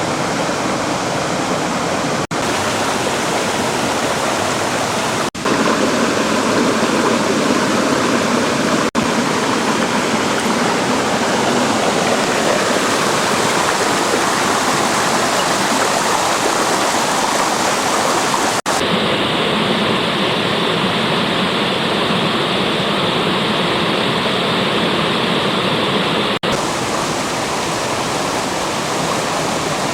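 Rushing water of a fast river or mountain stream, a steady even rush. It is broken by several brief cuts where the tone of the water shifts, and for a stretch past the middle it sounds duller.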